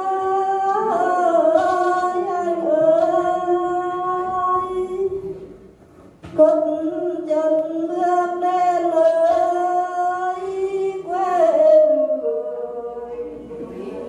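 A woman singing lượn, a Tày-Nùng folk song, unaccompanied into a microphone, in long held, wavering notes. There is a short breath break about six seconds in, then another long phrase that slides down in pitch near the end.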